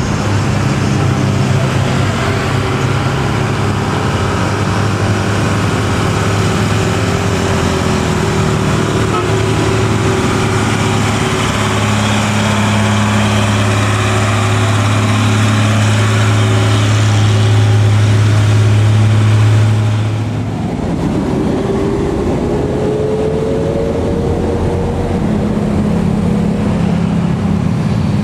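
Diesel engine of a loaded Mitsubishi Fuso 220PS truck running under load as it crawls uphill, a steady deep hum that grows louder as the truck comes close and passes. About two-thirds of the way in it gives way to another truck's engine climbing, its pitch gliding upward.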